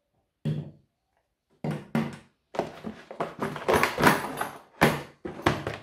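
Handling noise from unpacking a rotary multi-tool kit: a short knock about half a second in, then a dense run of knocks, clatter and rustling as the accessories and packaging are moved about.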